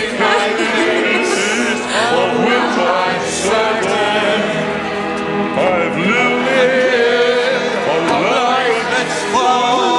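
Several voices, men and a woman, singing together into microphones over backing music.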